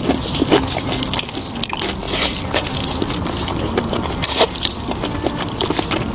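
A person biting and chewing food close to the microphone, with irregular sharp crunches and crackles.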